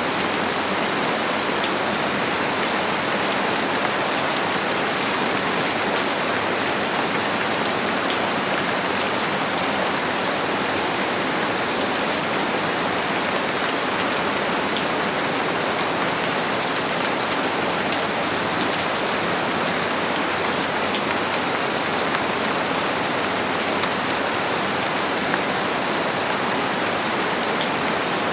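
Steady heavy rain falling and pattering on surfaces, a dense even hiss with many fine drop ticks, unchanging throughout.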